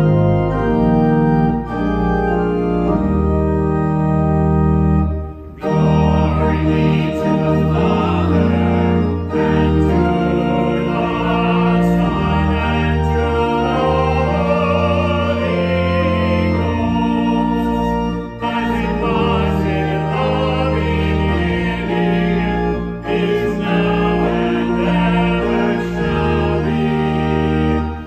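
Church organ playing a hymn in full sustained chords, phrase by phrase, with brief breaks between phrases.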